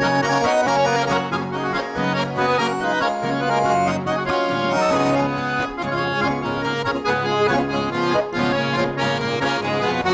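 Accordion playing the instrumental introduction of a country song, over a steady rhythm of bass notes, before the singing comes in.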